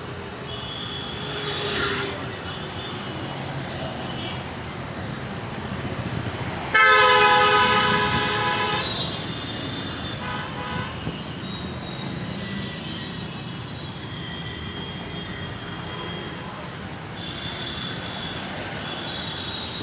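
Road traffic running, with a vehicle horn blaring loudly for about two seconds, starting suddenly about seven seconds in, and a second short toot a couple of seconds later.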